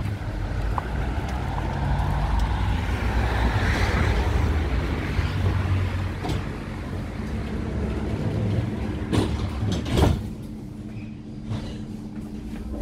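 GT8N articulated tram running on its rails: a steady low rumble with wheel-on-rail hiss that swells and fades, two sharp knocks near the end, then it goes quieter.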